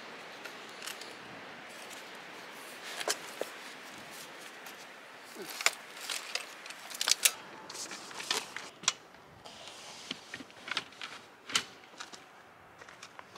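UPPAbaby Vista V2 stroller being unfolded and set up: a run of plastic-and-metal clicks and clatters as the frame's lock is released and its joints swing open and latch. Near the end the bassinet clicks into its mounts on the frame.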